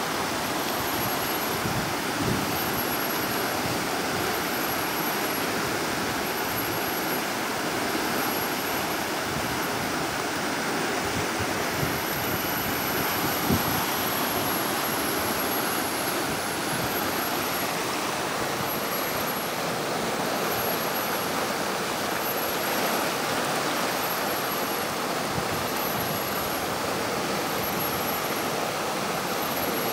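White-water river rapids rushing steadily over rocks, close by.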